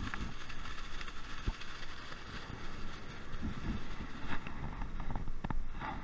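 Wind noise on the microphone, with plastic-bag rustles and crackles near the end and footsteps in sand.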